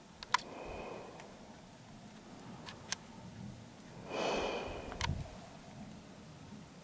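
A few light clicks and knocks of someone stepping carefully over a debris-strewn floor, with a short sniff about four seconds in.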